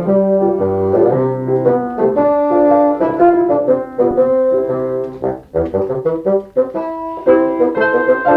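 Background music: a slow tune in several parts, made of held notes, with a brief drop in loudness a little past halfway.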